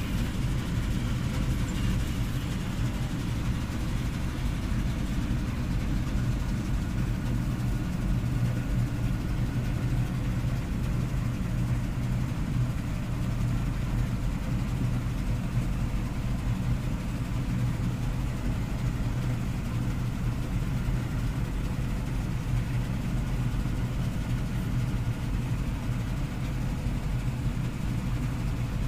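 Combine harvester running steadily while harvesting, heard from inside the cab as an even low engine drone.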